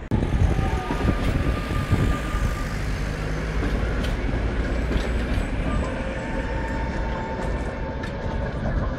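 Trams rolling past close by: a steady rumble of steel wheels on the rails, with thin whining tones coming and going and scattered clicks and knocks.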